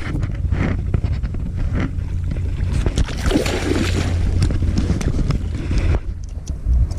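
Wind rumbling on the microphone, with scattered clicks and knocks of handling.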